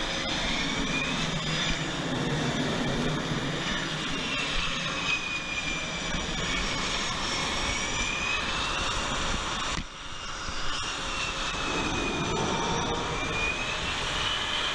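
F/A-18 Super Hornet turbofan jet engines running close by: a steady loud roar with a high whine whose tones slowly drift up and down. The noise dips briefly about ten seconds in.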